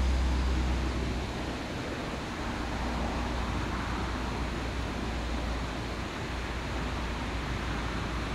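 Steady outdoor background noise with no distinct event. A low rumble is strong at the start and fades within the first couple of seconds.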